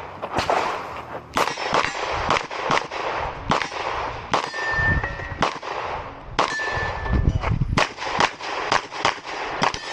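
Rapid pistol shots, about two to three a second, with steel targets ringing when hit, twice around the middle.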